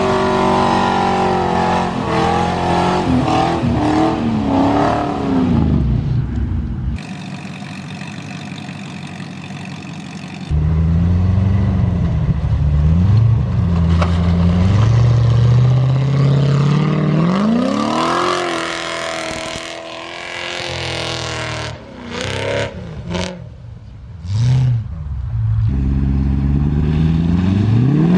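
Off-road 4WD engines revving hard, pitch rising and falling again and again, across several abrupt cuts. About seven seconds in, the engine sound gives way for a few seconds to a quieter hiss before the revving returns.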